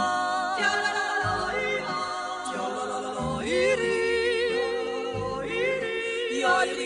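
Outro music with singing voices: long held notes with vibrato over low bass notes.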